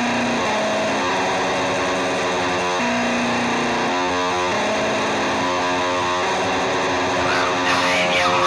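Guitar-led music with distortion: held notes and chords that change pitch every half second to a second.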